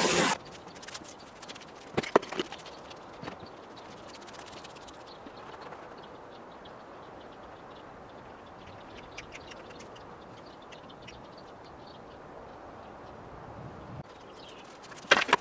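A brief burst of pressure-washer spray hitting a wheel right at the start, then a quiet outdoor background with faint scattered ticks and a couple of sharp clicks about two seconds in. A sharp click-like sound comes again near the end.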